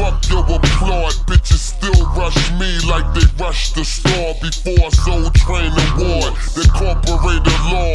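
Slowed-down hip hop track: rapping over a deep, sustained bass line and sharp drum hits.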